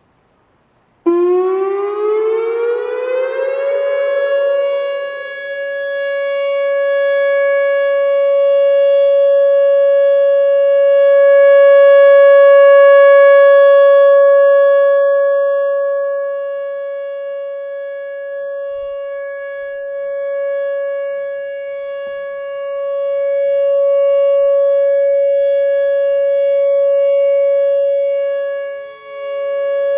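Whelen WPS-3016 electronic outdoor warning siren sounding its steady alert tone. It cuts in about a second in, climbs in pitch for a couple of seconds, then holds one steady tone that slowly swells and fades as the rotating speaker array turns.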